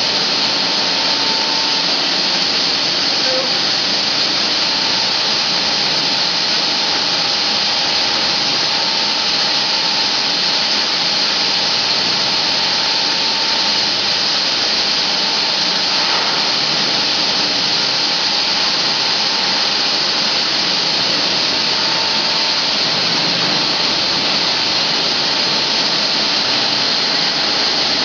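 Automatic bamboo chopstick-blank cutting machine running, a loud, steady hissing whir with a faint held tone and no separate cuts or knocks.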